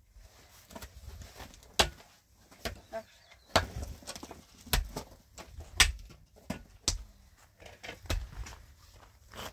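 A series of sharp knocks at uneven intervals, about one a second.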